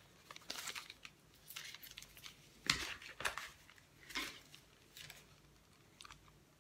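Paper strips from dictionary pages rustling and crinkling as they are handled and shuffled on a tabletop, in several short bursts, the loudest a little under three seconds in.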